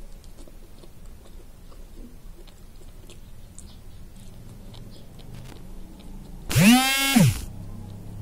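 A person chewing a mouthful of garlic fried rice and skinless longganisa, with soft, wet mouth clicks. About six and a half seconds in, a loud sound swoops up and back down in pitch for just under a second.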